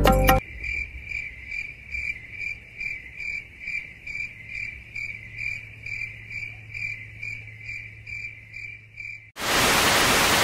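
Cricket chirping sound effect: a high, steady chirp repeating about two to three times a second. Near the end it gives way to a louder burst of TV-static hiss.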